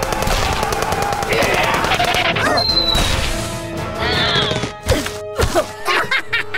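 Cartoon sound effects over background music: rapid gunfire for the first couple of seconds, then several sharp impact hits near the end.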